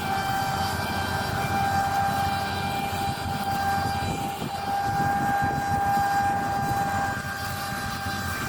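Claas Lexion 8900 combine harvester running steadily while harvesting: a continuous machine drone with a constant high whine over it.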